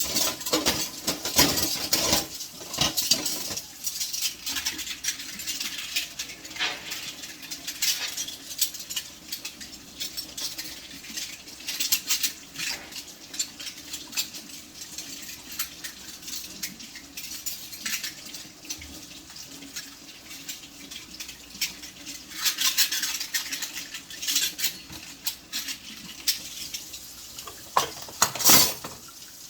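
Dishes and cutlery clinking and clattering as they are handled and set down, with many short sharp knocks. The clatter is busiest near the end.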